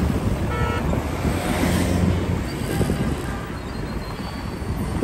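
Street traffic heard from a moving vehicle: a steady low engine rumble with wind on the microphone. A brief high tone sounds about half a second in.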